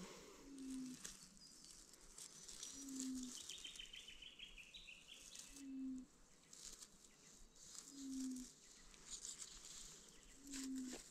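Faint outdoor wildlife sounds: a short, low, slightly falling hoot repeated evenly about every two and a half seconds, with a brief high twittering bird trill in the first half.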